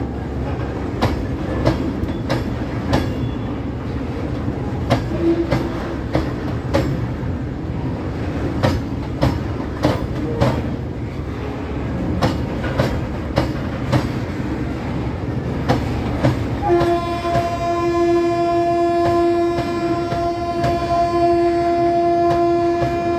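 Steel wheels of passing goods wagons knocking sharply over a rail joint, the knocks often in quick pairs as each bogie's axles cross, over a steady rumble of the rolling train. About 17 seconds in, a train horn starts and sounds one long steady note to the end.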